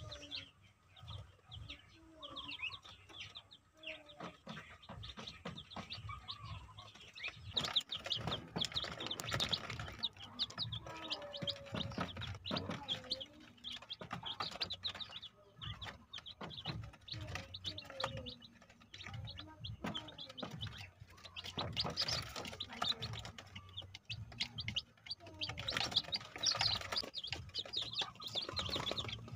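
Newly hatched chicks peeping: many short, high chirps overlapping one another, thickening from about eight seconds in, with light taps scattered among them.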